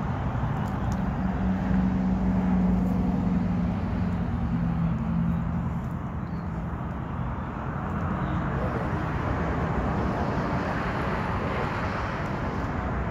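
Steady vehicle engine rumble with a low hum, strongest in the first five seconds.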